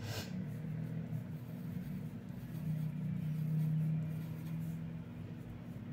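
Graphite pencil sketching on paper, a faint scratching of strokes, over a steady low hum.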